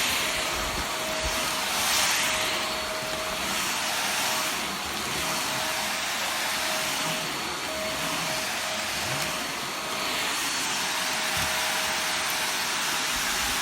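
Corded cyclone stick vacuum cleaner running, a steady motor whine under a rushing hiss of air that swells and fades every few seconds.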